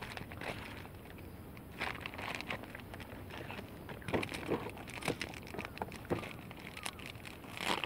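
Fishing tackle and plastic packaging being handled in a small boat: irregular light clicks, knocks and crinkles, with a few sharper knocks.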